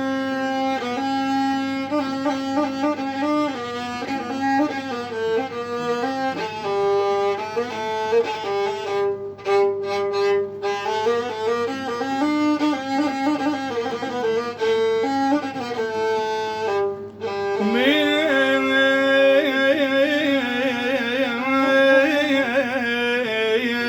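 Instrumental passage of an Iraqi song, a violin playing the melody in sustained, ornamented notes; about 18 seconds in the sound changes and the line slides more between notes.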